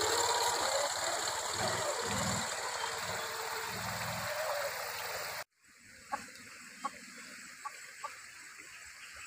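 Small motorbike engine running as it pulls away, over the rush of a rocky stream. About five seconds in, an abrupt cut to a quieter stream murmur, with four short clucks from a white hen.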